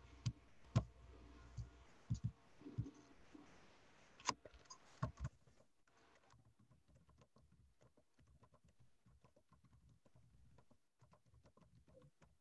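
About nine irregular clicks and dull knocks from a computer keyboard and mouse being handled, picked up over an open microphone in the first five or six seconds. After that only faint scattered ticks remain.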